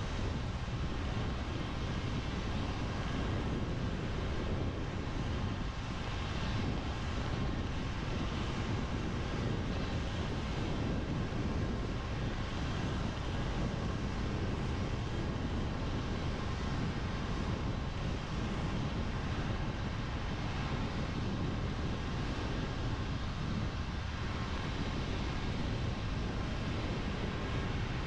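Steady road noise of a car driving on a wet road in the rain: an even hiss of tyres and rain over a low road rumble.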